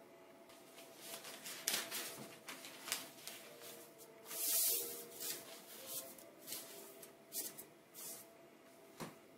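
Sheets of calligraphy paper rustling and sliding over a felt mat as hands lay down a fresh sheet and smooth it flat: a series of soft brushing swishes, loudest about halfway through, and a single light knock near the end.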